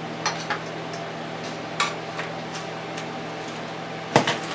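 A utensil clinking and knocking against a bowl a few times while eggs and cheese are mixed, with the loudest knock near the end, over the steady hum of a running microwave oven.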